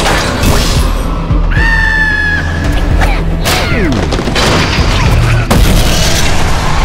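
Cartoon action soundtrack: loud music mixed with booms and crashes. About one and a half seconds in, a high cry-like squeal is held for about a second.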